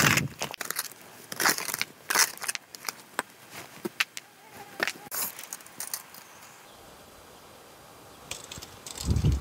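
Long-handled hoe striking and scraping into dry, crumbly soil: several irregular crunchy chops and scrapes over the first five seconds. After that it goes quiet, and near the end there is a brief low thump.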